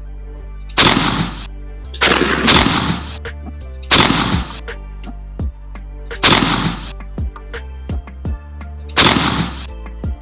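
Shotgun firing at flying ducks: about seven loud blasts, each trailing off briefly, including two quick doubles about half a second apart, over steady background music.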